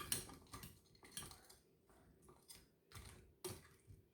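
Faint, irregular light clicks and short scrapes of a utensil against a pan, roughly two a second, as chicken wings are tossed in sauce.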